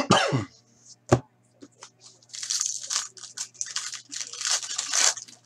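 A hockey card pack wrapper crinkling and tearing as it is opened by hand, a dense crackling lasting about three seconds from just before the middle. A short loud burst right at the start and a click about a second in.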